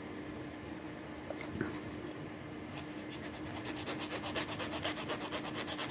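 Small metal file rubbed back and forth over a cut wire end at a necklace clasp, smoothing it so it won't scratch the neck. A few scattered scrapes at first, then quick repeated strokes, several a second, from about three seconds in.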